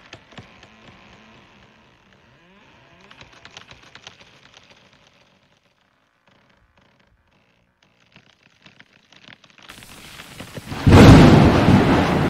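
Wood and branches of a tree creaking and rustling faintly under an African elephant's push, then near the end a sudden loud crash as the tree gives way.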